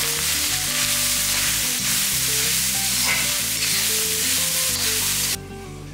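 Cooked rice sizzling in hot ghee as it is stirred and tossed with a steel spoon in an aluminium kadai. The sizzle cuts off suddenly near the end.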